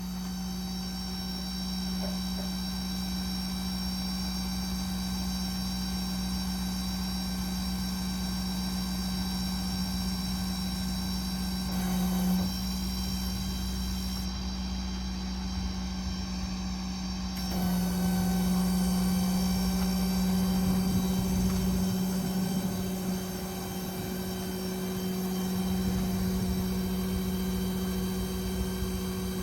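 Ford F550's 6.7 L diesel engine running steadily, a continuous mechanical hum that grows slightly louder about halfway through.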